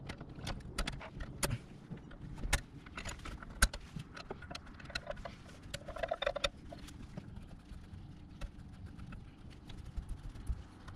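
Scattered metallic clicks and clinks of hand tools and parts during reassembly of the ABS module and its brake lines, thicker in the first seven seconds, with a short squeak about six seconds in.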